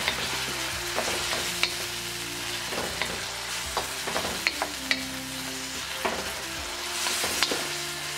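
Mixed vegetables stir-frying in a hot wok: a steady sizzle, broken by irregular sharp clicks and scrapes as a wooden spatula tosses them against the pan.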